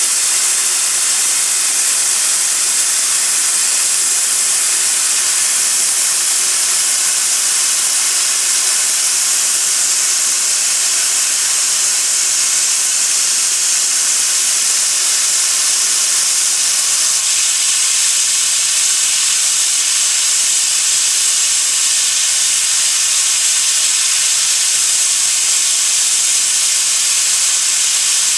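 1913 0-4-0 saddle-tank steam locomotive blowing off steam from the top of its boiler, most likely through a lifted safety valve, which is a sign the boiler is at full working pressure. It makes a loud, steady, high-pitched hiss that does not change.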